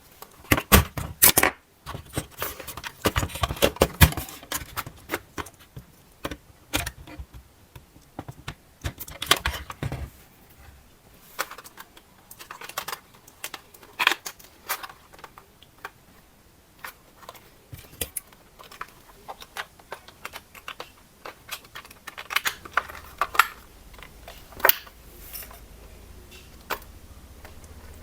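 Irregular clicks, taps and rattles of hard plastic being handled, in quick clusters, as when unpacking and handling a plastic RC toy and its parts. A faint low hum comes in near the end.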